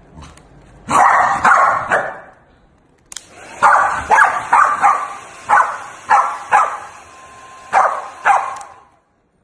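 Pembroke Welsh corgi barking sharply and repeatedly, about a dozen barks, at a hand-held hair dryer aimed at it. The dryer's steady airflow hiss switches on about three seconds in and cuts off shortly before the end, with the barks going on over it.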